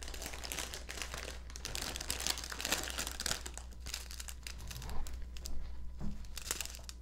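Plastic bags crinkling and crackling as hands rummage through a clear plastic bag packed with small baggies of diamond painting drills. The crackling is dense at first and thins out to a few separate crinkles in the last couple of seconds.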